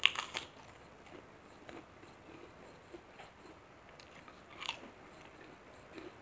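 Kerupuk cracker bitten with a cluster of sharp crunches at the start, then quieter chewing crackles and another crisp bite a little before the end.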